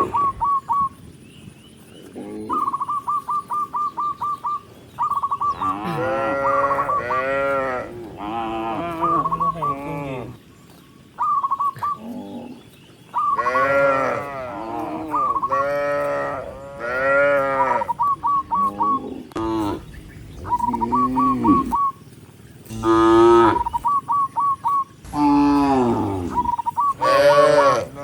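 Several cattle mooing over and over in long, bending calls that sometimes overlap. Between the moos, a rapid run of short, high chirping notes recurs many times.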